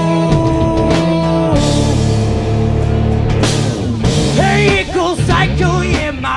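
Live rock band playing an instrumental passage with drums and guitar. Long held notes in the first half give way to a high line that bends and wavers in pitch in the second half.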